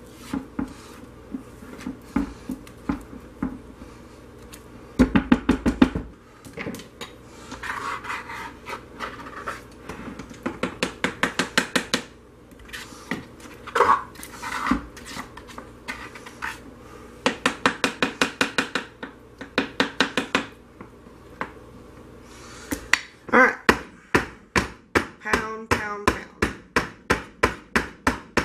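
A utensil scraping and knocking against the inside of a crock pot as thick hot-process soap is scooped and scraped out, in repeated runs of quick clicking strokes. Near the end comes a run of louder knocks, about three a second.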